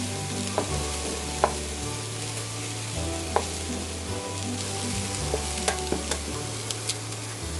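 Fried rice sizzling in a pan while it is stirred, with sharp clicks of the spatula against the pan several times. Background music with a steady low bass line plays underneath.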